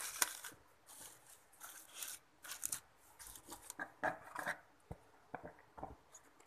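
Plastic cling wrap crinkling and rustling in short, irregular bursts as hands press it down over a plastic tub, with a few light clicks in the second half as the tub's plastic lid is handled.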